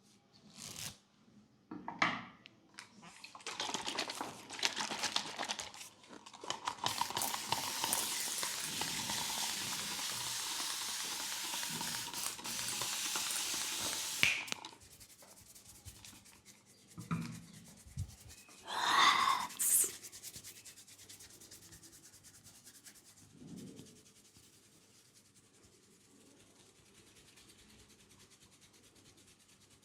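Hands rubbing over hair and scalp close to the microphone during a head massage: a dense, steady scratchy rubbing that stops suddenly about halfway through, then a few short, louder rustles and faint rubbing.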